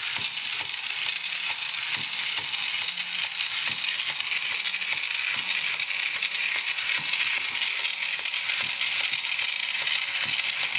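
Battery-operated plastic toy walking robot running: its small motor and all-plastic gearbox drive the legs with a continuous fast clicking rattle, the robot's built-in clicking sound, with light knocks from its feet.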